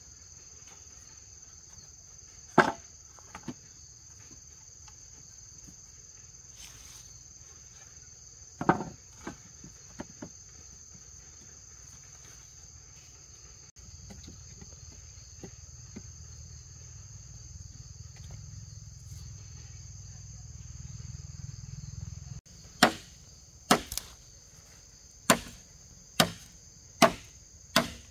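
Insects whine steadily and high throughout, with a couple of sharp wooden knocks in the first ten seconds. Near the end comes a run of sharp chopping blows, about one a second, as a machete cuts into a green bamboo pole.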